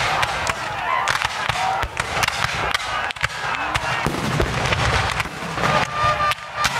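Black-powder musket fire from infantry lines: a dense, uneven crackle of many shots in quick succession.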